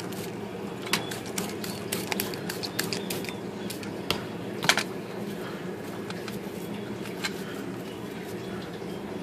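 Scattered light clicks and taps from the metal parts of a 1930s Royal KH manual typewriter as it is scrubbed and washed down, over a steady low hum.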